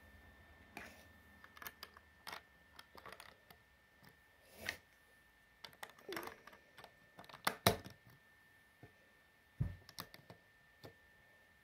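Plastic Lego bricks clicking and tapping as they are handled and pressed onto a build: scattered sharp clicks throughout, loudest about seven and a half seconds in.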